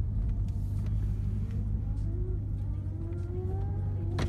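Lexus IS F V8 with a cat-back exhaust running low and steady, heard from inside the cabin. A faint whine comes in during the last second and a half, rising in pitch and then holding.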